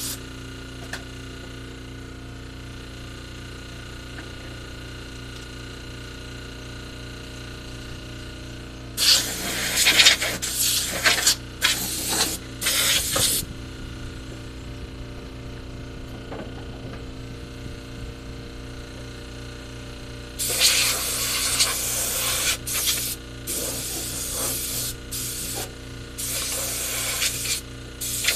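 Loud hissing bursts of spray in two runs, several short blasts from about nine to thirteen seconds in and a longer series from about twenty seconds in to the end, over a steady low hum.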